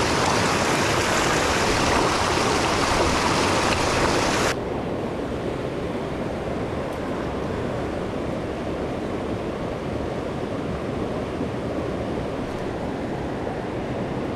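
Mountain creek white water rushing over rocks, a steady hiss of moving water. About four and a half seconds in it drops suddenly to a quieter, duller rush.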